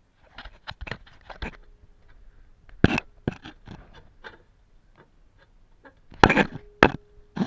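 Metal knocks and clanks of a steel axle stand being handled and set up under a caravan chassis: scattered sharp knocks, a loud one about three seconds in and a quick clatter near the end, twice followed by a short ringing tone.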